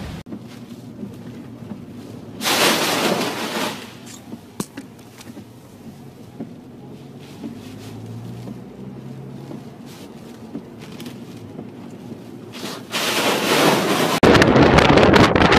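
Storm wind and water noise: a low rush throughout, a brief louder burst of noise about two seconds in, and strong wind blowing on the microphone near the end.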